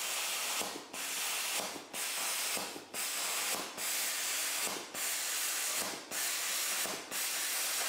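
BestArc BTC500XP plasma cutter's hand torch cutting expanded steel mesh in mesh mode: a steady hiss of the plasma arc and air stream, with short dips about once a second as it crosses the mesh.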